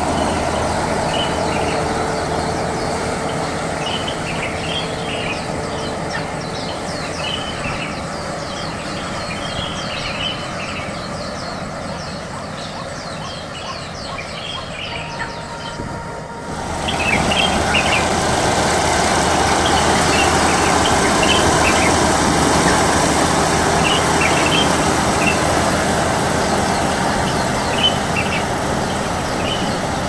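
Kubota DR120 rice combine harvester running as it cuts ripe rice, a steady mechanical drone that fades as the machine draws away, then is suddenly louder and closer just past halfway. Small birds chirp now and then over it.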